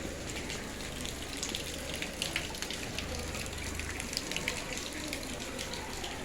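Heavy rain falling steadily, with many small drips and splashes pattering through it.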